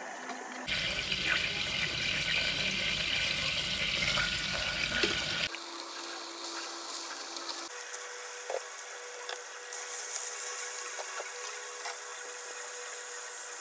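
Hot oil sizzling and spitting in an aluminium pressure cooker as washed, wet cauliflower florets are dropped into it, with a few light ticks and knocks. The hiss changes abruptly about three times.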